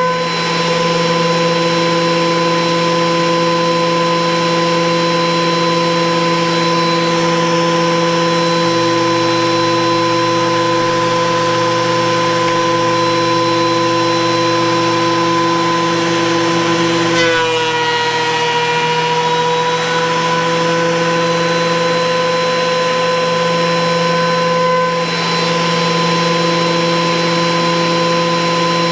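DeWalt DW734 thickness planer running with a steady whine while a long board feeds through on a light pass. About two-thirds of the way through, the pitch dips briefly as the motor takes load, then recovers.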